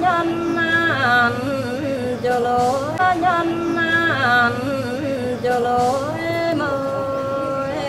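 Muong folk singing (hát Mường): a woman's voice sings long, wavering held notes with sliding ornaments between pitches.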